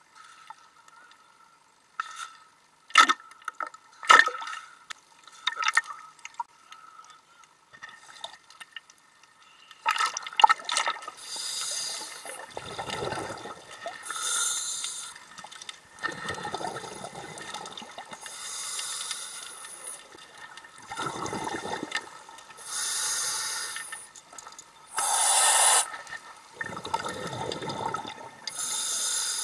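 Water splashing and lapping at the surface with a few sharp knocks, then, once underwater, a scuba diver breathing through a regulator: a hissing inhale alternating with a rumbling burst of exhaled bubbles, the cycle repeating every four to five seconds.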